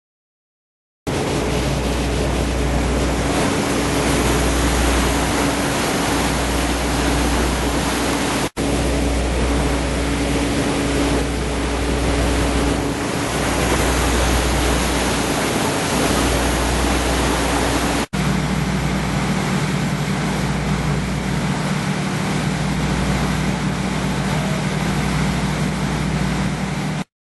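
Hytrans HS150 flood pump running at high volume: a steady rush of water over a low engine hum. The sound breaks off for an instant twice, and after the second break the hum sits at a different pitch.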